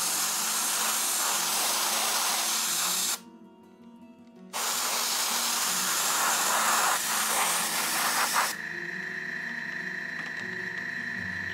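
Harder & Steenbeck airbrush spraying paint, a steady hiss of air in two long passes of about three and four seconds with a short break between them. After about eight seconds the spraying stops and a steady humming tone carries on.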